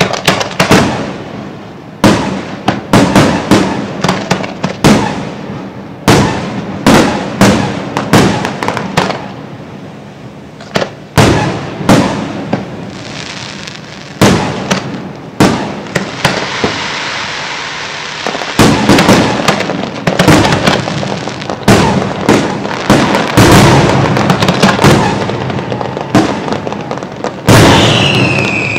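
Fireworks display: a rapid, irregular series of loud bangs from bursting shells, with a stretch of crackling hiss about halfway through and a falling whistle near the end.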